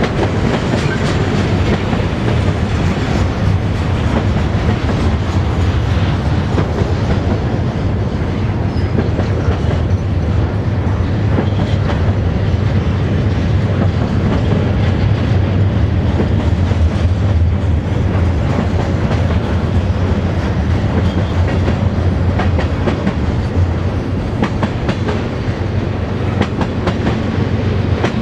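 Freight cars of a long mixed freight train (gondolas, boxcars, tank cars and hoppers) rolling past: a steady noise of steel wheels on rail with a low hum and a clickety-clack of wheels over rail joints.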